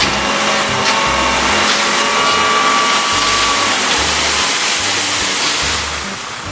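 A loud, steady rushing hiss that starts suddenly and dies down near the end, over background music with a beat.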